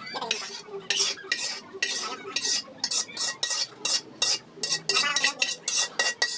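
Metal spoon scraping and clinking against a large metal wok, scooping cooked laing out into a plastic container in quick repeated strokes, roughly three a second.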